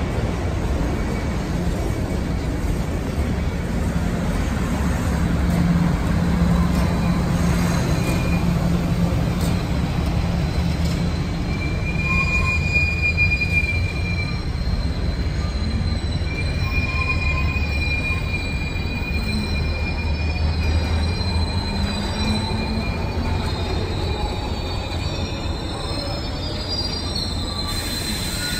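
Passenger railcars rolling slowly past with a steady low rumble. A high-pitched wheel squeal comes in about a third of the way in, returns for longer a little later, and fainter squeals follow near the end.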